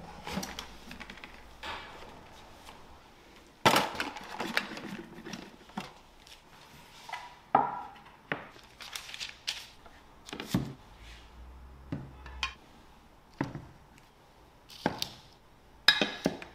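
Glass seasoning bottles and a wooden tray being set down on a stone counter: a string of separate knocks and clunks. The loudest come about four seconds in and near the end.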